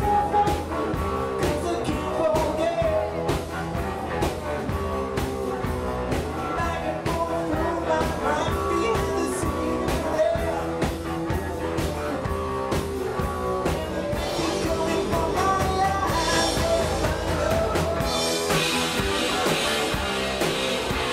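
Live rock band playing, heard from right beside the drum kit: a steady drum beat under bass and electric guitar. About eighteen seconds in, cymbals wash over the top.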